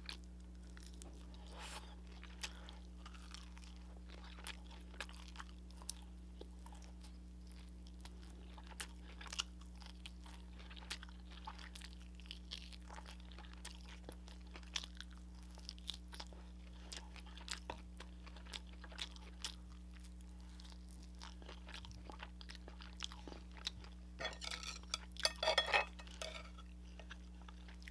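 A person chewing and crunching crispy-coated fried chicken: a string of small, irregular crunches and moist clicks, with a denser, louder cluster near the end. A faint steady hum lies underneath.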